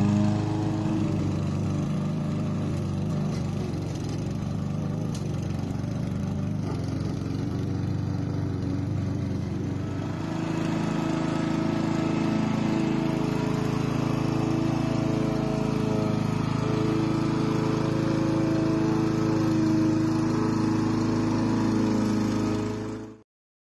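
Cub Cadet walk-behind petrol lawn mower running steadily while cutting grass. Its engine note changes about ten seconds in, and the sound stops abruptly near the end.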